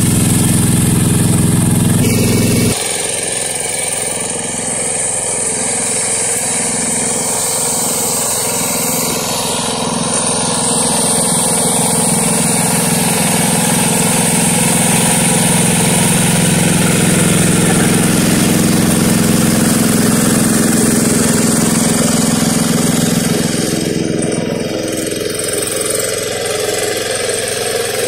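Yanmar two-wheel hand tractor's single-cylinder diesel engine running steadily under load as it pulls a plough through a wet rice paddy. It is loud at first and drops in level about three seconds in.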